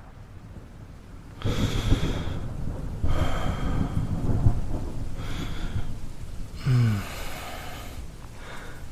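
Thunderstorm ambience: steady rain with rolls of thunder, the first rumbling in about one and a half seconds in and a louder one about three seconds in. A brief low hum from a man's voice sounds about two-thirds of the way through.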